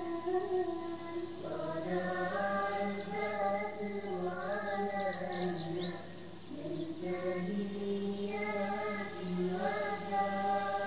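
Voices singing a slow chant in held notes that step up and down, with a short break about two-thirds of the way through. A few faint high chirps come near the middle.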